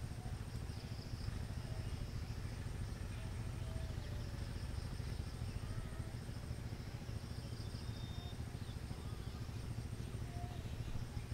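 Outdoor wetland ambience: a steady low rumble, a constant high insect-like hiss with a thin high whine that comes and goes, and a few faint, short whistled bird notes.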